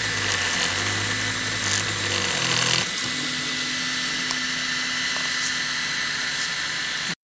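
FDM 3D printer running a print: its stepper motors hum in steady low tones that change pitch about three seconds in, over a steady hiss. The sound cuts off suddenly near the end.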